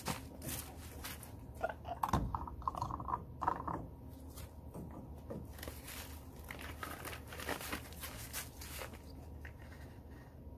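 Plastic bag of granulated sugar crinkling and rustling as it is handled and opened, with scattered short clicks and taps, quieter for the last second or so.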